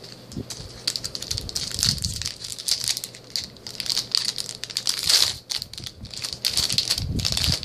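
Foil trading-card booster pack wrapper crinkling and crackling as it is handled and opened by hand, with no let-up.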